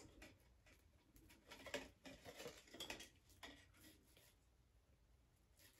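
Near silence with faint rustles and light ticks of hands handling a synthetic wig while its netting and tag are pulled off.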